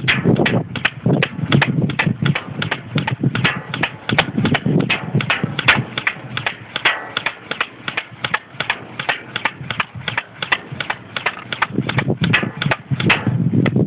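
G608 electric airsoft rifle, a G36-style AEG, firing single shots in quick succession, about three a second.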